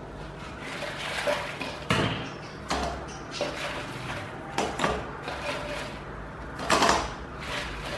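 Fried chicken wings dropped one at a time into sauce in a nonstick pan: a handful of separate soft thuds, the loudest near the end.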